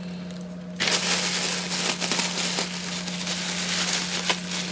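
Plastic fish-shipping bags crinkling and rustling as hands handle them, a busy crackle that starts about a second in.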